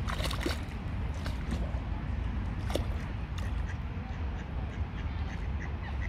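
Waterfowl calling in short quack-like notes over a steady low rumble. A few sharp clicks come just after the start and one about three seconds in.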